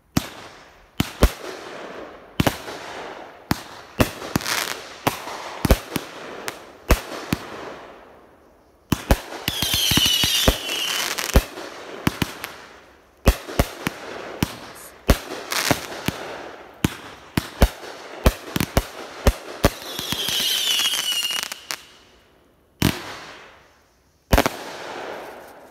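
Two Raccoon 200-gram consumer firework cakes, Outrageous and Monkey Business, firing at the same time: a quick run of shots that burst with sharp bangs and crackle. Whistles sound twice, about ten and about twenty seconds in, and two last bursts come near the end.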